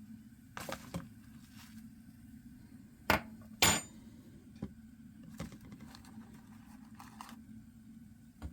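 Cookware and dishes being handled: scattered knocks and clinks, with two loud clacks about three seconds in, over a low steady hum.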